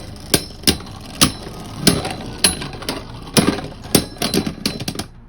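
Two spinning Beyblade tops, Vanish Fafnir and Mirage Fafnir, clashing in a Beyblade stadium: sharp irregular clacks as they strike each other over a steady whirr, with a quick flurry of hits near the end before they stop.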